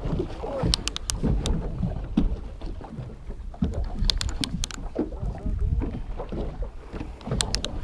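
Wind buffeting the microphone over a steady low rumble of the boat on the water. Small clusters of sharp clicks come about a second in, around four seconds, and near the end.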